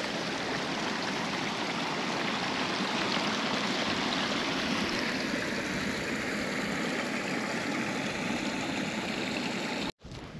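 Small stream running: a steady rush of water.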